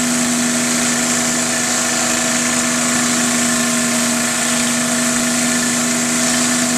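Troy-Bilt 2700 PSI gas pressure washer running steadily, its engine holding one even hum under the hiss of the water spray.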